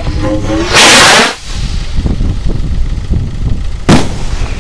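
Firework fired from a homemade drain-pipe launcher: a loud rushing blast lasting about half a second as the charge leaves the tube, then, about three seconds later, a single sharp bang as it bursts into sparks.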